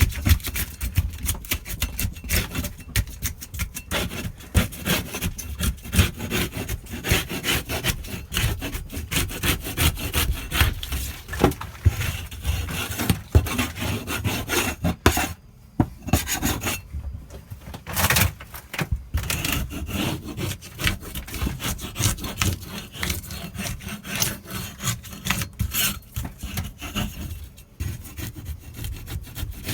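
Hand scraper scraping rotten, damp plywood and insulation off a caravan wall in rapid, uneven strokes, with brief pauses.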